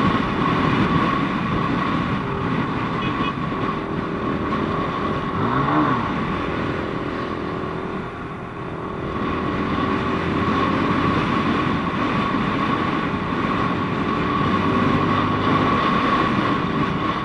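QJMotor SRK300S motorcycle engine running steadily, with a brief rise and fall in pitch about six seconds in.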